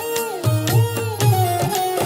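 Background music in a South Asian folk style: a gliding melody over a repeating low drum beat.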